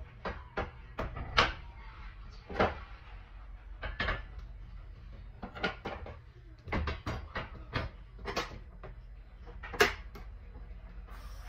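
Irregular knocks and clacks of kitchen things being handled and set down during cleaning, about a dozen and a half of them, the loudest about a second and a half in and near the end, over a low steady hum.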